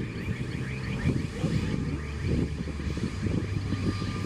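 Airbus A320neo's Pratt & Whitney geared turbofan engines running at low taxi power as the airliner turns onto the runway to line up, a steady low rumble.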